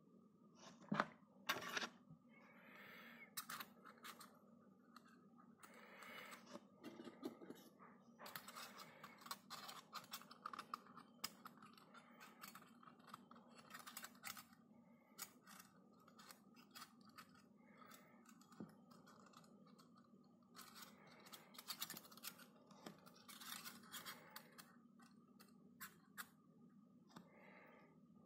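Faint handling of stainless steel cookie cutters: scattered clicks and scraping as metal cutters are set onto and against one another, with two louder clicks about a second in.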